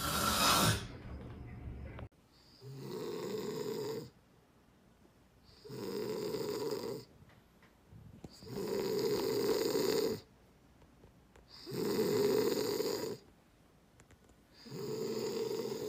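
A person snoring: five long snores about three seconds apart, with quiet breaths between. A brief loud sound comes in the first second, just before the sound cuts off abruptly.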